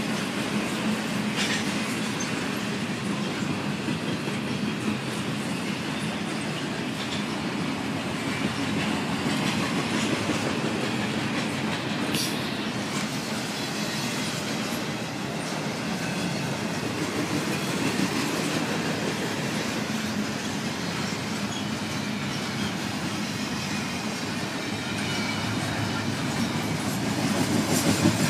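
Norfolk Southern double-stack intermodal freight train rolling past: a steady rumble of steel wheels on the rails, with an occasional clack. It grows a little louder near the end.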